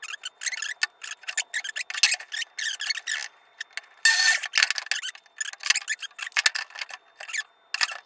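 Short, irregular rubs, clicks and scrapes of a 2x4 and a tape measure being handled on a miter saw table, with the saw arm being moved; the saw motor is not heard running.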